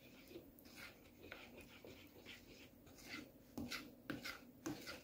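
Silicone spatula stirring thin tomato sauce in a plastic bowl: a run of soft, wet scraping strokes against the bowl, louder near the end.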